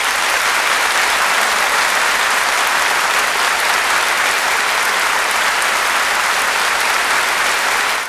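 Sampled recording of a crowd applauding: dense, steady clapping that cuts off suddenly at the end.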